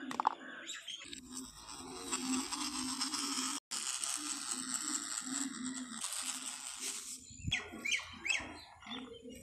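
Small brushed DC toy motor buzzing after its battery leads are touched on with a click, followed by a few short bird chirps near the end.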